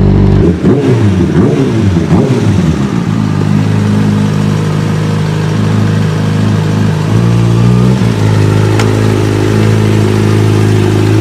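Sportbike engine revving, its pitch gliding up and down over the first few seconds, then running at a steady pitch that shifts in steps about seven and eight seconds in.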